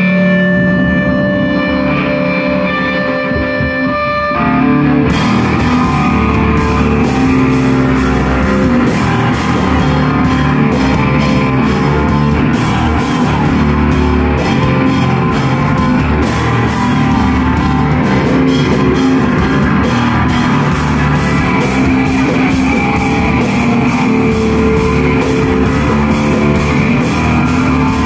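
Live rock band playing amplified electric guitars and a drum kit. Guitars hold sustained notes, then drums and cymbals come in with the full band about four to five seconds in.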